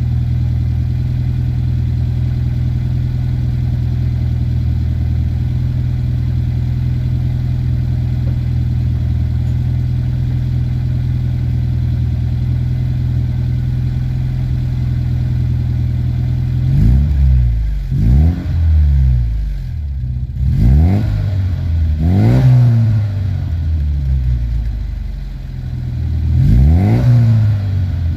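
Alfa Romeo 75 exhaust at the tailpipe: the engine idles steadily, then in the last third is revved in about five short throttle blips, each rising and falling in pitch.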